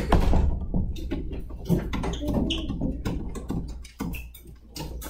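Classroom background: scattered low children's voices over a steady low hum, with a few sharp knocks from desks or chairs.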